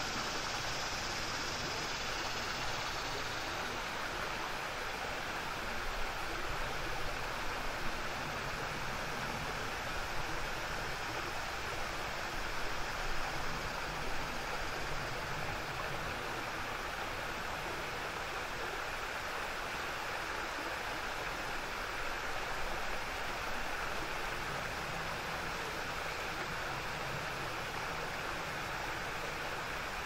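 Small, low waterfall: water rushing and splashing steadily over a rocky ledge into a stream, with slight swells in the rush now and then.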